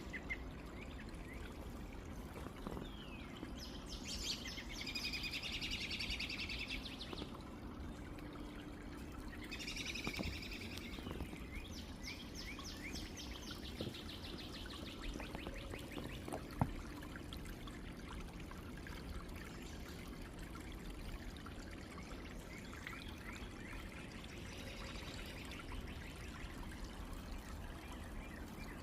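Small stream running and trickling steadily, with birds singing fast trills twice near the start and more faintly later on. A single sharp click about two-thirds of the way through.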